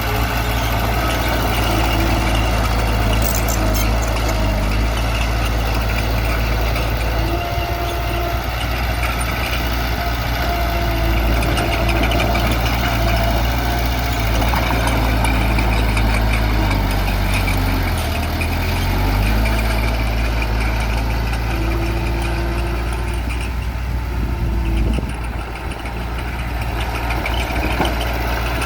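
Heavy diesel engine of earthmoving machinery running steadily; its speed dips and picks back up about two-thirds of the way through.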